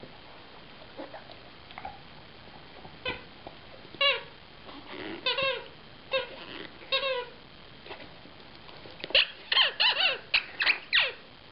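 Dog chewing a rubber squeak toy, making short high squeaks: a few spaced ones, then a quick run of squeaks near the end.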